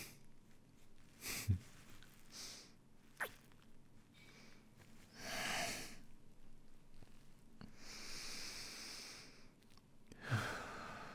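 A man breathing close to the microphone in short breaths and sighs, with a sharp mouth click about three seconds in and a long breathy exhale a little before the end.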